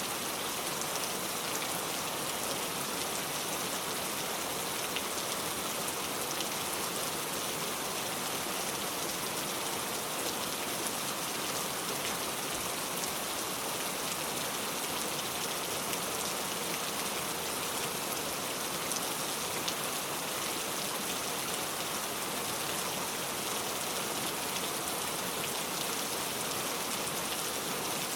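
Steady rainfall, drops pattering densely on a surface in an even, unbroken hiss.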